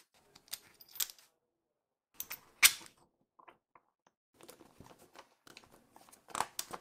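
Short metallic clicks and taps as a steel rod is slid through a ball bearing in a plywood block and an aluminium shaft-support block is fitted onto it, the sharpest click about two and a half seconds in.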